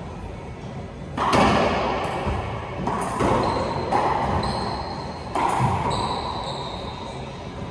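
Racquetball rally: sharp echoing cracks of the ball off racquets and the court walls, the three loudest about two seconds apart. Brief high squeaks of court shoes on the hardwood floor come in the middle.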